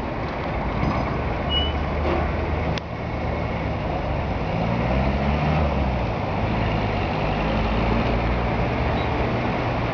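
Road traffic: the steady rumble of car and truck engines, with one engine rising and then falling in pitch around the middle, and a single sharp click about three seconds in.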